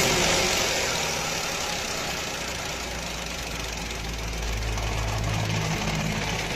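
Engine running at idle just after starting, rising a little about four seconds in; the engine is one with a misfire.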